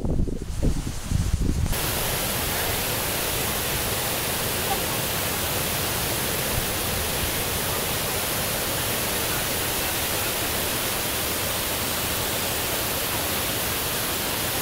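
Wind buffeting the microphone for the first two seconds or so. Then the steady, even rush of a small waterfall pouring over a rock ledge into a stream.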